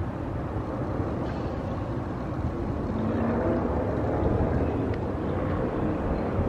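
Street traffic: a motor vehicle's engine hum over a steady low rumble, swelling a little past the middle.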